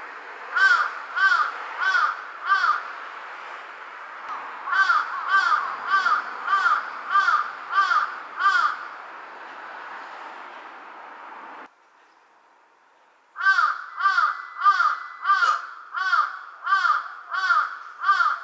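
Jungle crow (large-billed crow) cawing in three runs of short, evenly paced caws, about two a second, with a pause between runs. A steady background hiss cuts off suddenly about halfway through.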